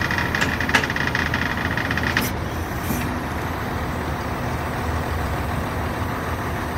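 Road traffic with a heavy vehicle's engine running close by; a steady high whine stops about two seconds in with a short hiss, leaving the even traffic noise.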